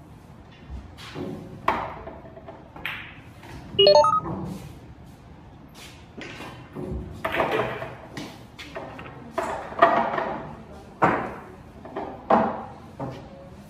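Pool balls clacking on a billiard table in a room with some echo. A loud, ringing clack about four seconds in as the 9-ball is played, then a string of knocks and clatters as balls are handled for the next rack.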